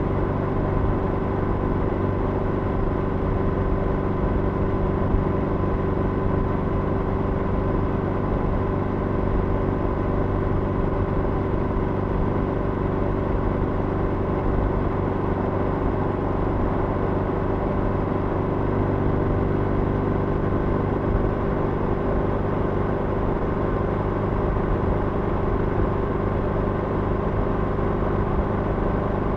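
Motorcycle engine running at a steady cruise of about 80 km/h, with a constant engine note under wind and road noise, inside a long road tunnel.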